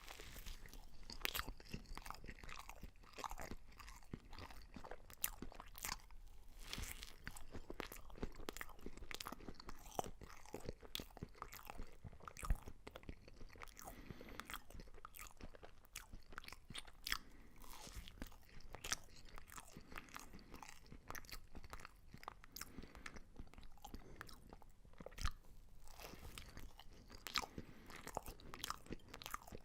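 Someone chewing crisp, crunchy food, with irregular crunches and bites throughout and two louder crunches, one near the middle and one later on.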